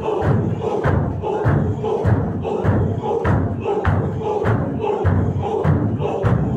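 A group of men chanting together in an Ingush Sufi zikr, over heavy rhythmic thuds of stamping feet, about one and a half beats a second.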